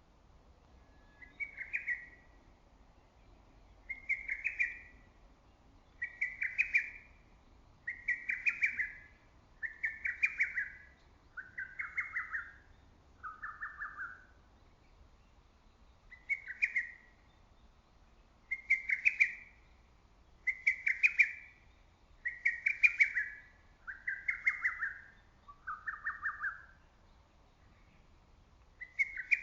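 Lesser cuckoo (hototogisu) singing its short, rapid multi-note phrase over and over, about once every two seconds. The phrases come in two runs, each ending on a couple of lower-pitched phrases, and the song rings out with some echo.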